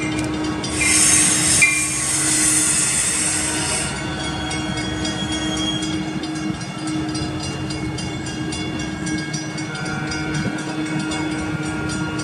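Metra commuter trains moving through a station: one pulling away while another rolls in cab car first, with a steady low hum and track noise throughout. A loud hissing burst starts about a second in and lasts a few seconds, and a thin steady whine comes in near the end.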